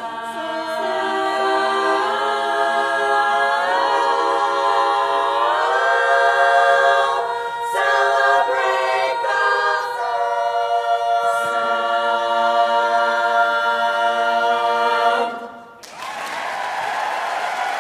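Women's a cappella chorus singing long held close-harmony chords, sliding up together to a new chord and ending on a final sustained chord about fifteen seconds in. Audience applause breaks out right after.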